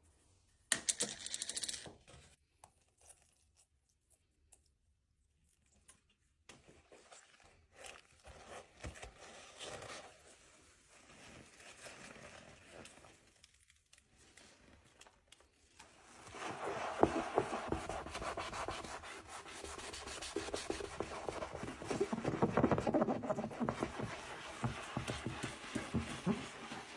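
Scrub Daddy sponge scrubbing a sink: rubbing and scraping strokes, faint and scattered at first, then louder and denser from about 16 seconds in. A short burst of noise comes about a second in.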